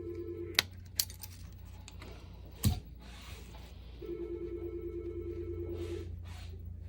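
A telephone ringing with a warbling electronic ring: one ring ends just after the start and a second, about two seconds long, comes about four seconds later. A few sharp clicks and a knock fall between the rings, over a steady low hum.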